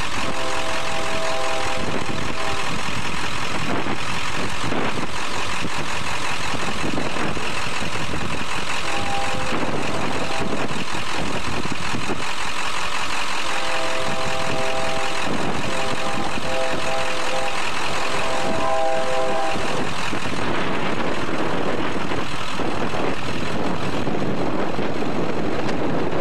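Diesel locomotive air horn sounding a chord of several notes at an approaching grade crossing: a blast of about two seconds, a shorter one, then a long blast of several seconds. A steady loud rushing noise runs underneath.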